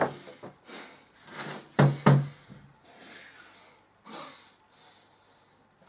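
A mobile phone set down on a wooden table with a light knock, then a man breathing heavily through sighs, with a short two-part voiced huff about two seconds in and a breathy exhale about four seconds in.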